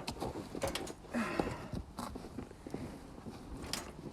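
A man grunting with effort, a few short falling grunts, while working the handle of a ratchet farm jack, with sharp clicks and knocks from the jack.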